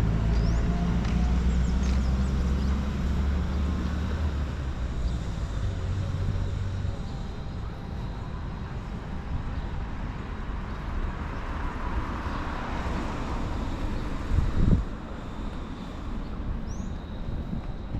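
A motor vehicle's low engine rumble that fades away over the first several seconds, leaving steady outdoor background noise with a short low thump near the end.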